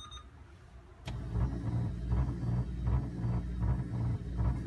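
1995 Honda Accord power antenna motor starting about a second in and running with a steady low hum that pulses about three times a second. The motor is trying to work but the mast does not move, which the owner takes as the mast being defective in all likelihood.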